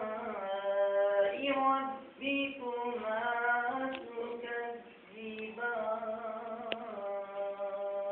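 A single voice singing a devotional recitation in long, held notes that glide between pitches, phrase by phrase, with short breaths in between.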